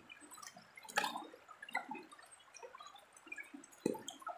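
Water sloshing and dripping as a round wooden gold pan is swirled and tilted in shallow river water, with irregular small splashes, a few louder ones about one second and about four seconds in.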